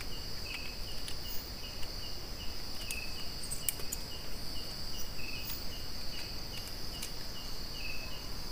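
Night insects: a steady high-pitched insect drone, with crickets chirping in an even pulse of about three chirps a second and a lower chirp every second or two.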